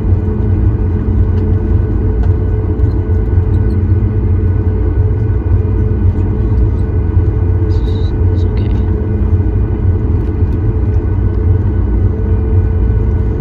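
Cabin noise of a Boeing 737 MAX 9 taxiing, heard from a window seat over the wing: its CFM LEAP-1B engines at low thrust give a steady low rumble, with faint steady whining tones above it.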